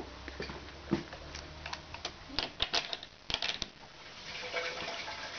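Quick runs of light clicks and knocks from a door and its hook latch being handled as the door is opened, thickest in the middle.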